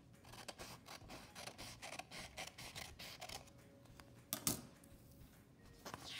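Scissors cutting through a sheet of paper in a run of faint, irregular snips, then a single louder knock about four and a half seconds in.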